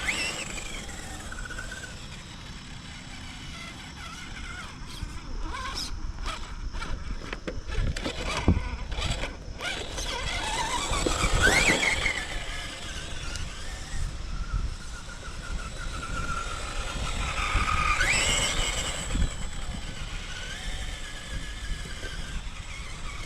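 RC rock crawler's 13-turn 3-slot 550 brushed motor and geared drivetrain whining, rising in pitch as the throttle is pushed about ten seconds in and again near eighteen seconds. Scattered clicks and knocks come from the truck clambering over the ground.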